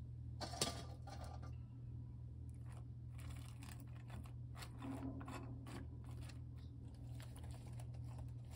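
Crisp crackling and rustling of fresh mung bean sprouts and sliced green onion being handled and dropped onto napa cabbage leaves in a pan, with one sharper snap about half a second in. A steady low hum runs underneath.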